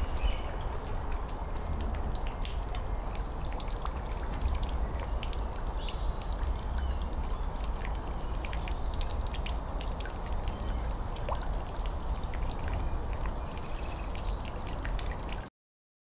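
Water dripping into a puddle: many small, irregular plinks of drops over a steady low rumble. It cuts off suddenly near the end.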